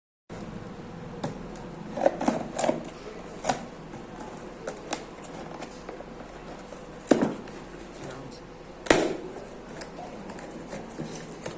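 Scattered clicks and knocks of packaging being handled and opened, over a steady hiss, with sharper knocks about 7 and 9 seconds in.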